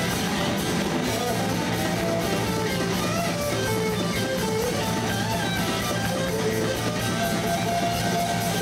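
Live rock band playing an instrumental stretch: distorted electric guitars with a drum kit, a guitar line moving up and down over steady low notes.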